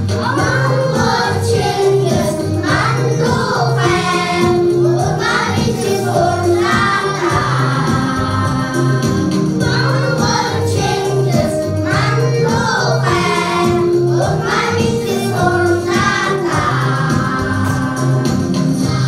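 A group of children singing a song together over recorded backing music with a steady bass beat.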